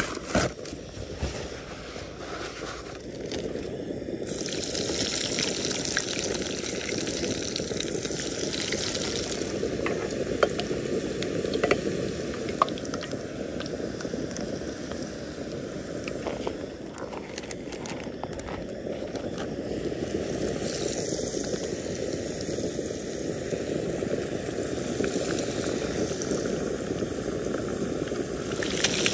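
Breaded fish frying in hot oil: a steady sizzle with scattered sharp pops.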